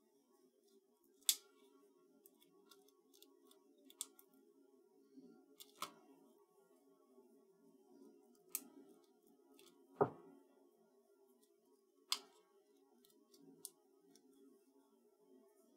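Hands handling and pressing cardstock die cuts onto a scrapbook layout: scattered sharp paper clicks and taps, about six louder ones with the loudest about ten seconds in, over a faint steady hum.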